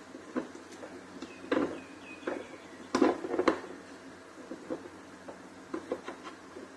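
Scattered light knocks and clicks, with a few louder ones between about one and a half and three and a half seconds in, over a faint steady hum.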